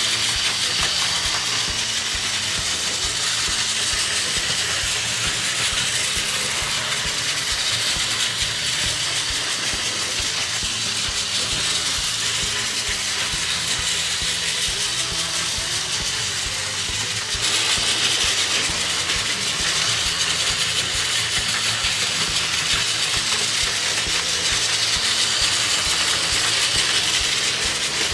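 Two battery-powered Plarail toy trains running at low speed on plastic track: a steady whir of small motors and plastic gears with the wheels rattling along the rails. It gets a little louder about two-thirds of the way through.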